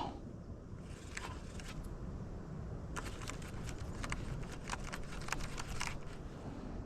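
Scattered light clicks and taps over a steady low rumble.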